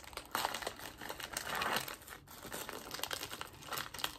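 Thin clear plastic food wrapper crinkling and rustling in the hands as it is picked and pulled at, in several irregular bursts, the loudest about one and a half seconds in; the wrapper is hard to open.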